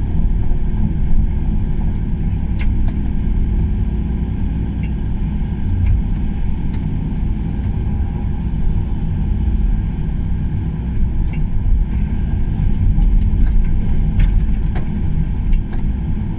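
Kobelco SK140 tracked excavator travelling on its tracks: a steady diesel engine and drive rumble, with scattered light clicks.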